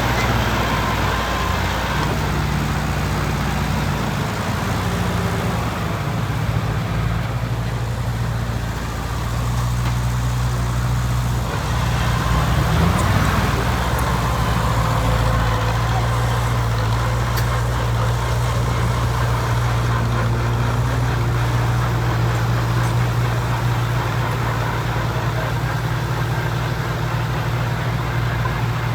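Engine of a heavy construction machine running steadily, with a low, even drone that grows briefly louder about twelve seconds in.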